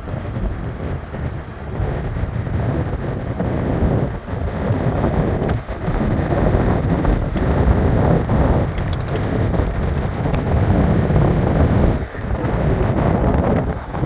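Wind buffeting the microphone: a loud, uneven rumble that swells and dips in gusts.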